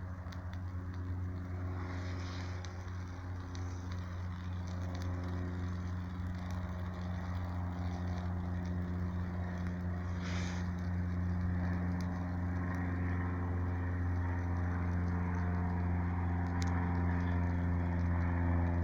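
An engine running steadily at constant speed, slowly growing louder.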